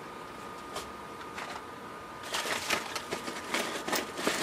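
Small cardboard vacuum-tube boxes rustling and clicking against one another as hands dig through a carton of them: a few light taps at first, then busier rustling from about halfway.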